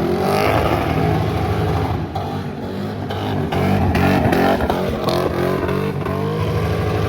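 1997 Lexus LS400's V8 engine revving hard, its pitch climbing and falling repeatedly as the car is held in a donut.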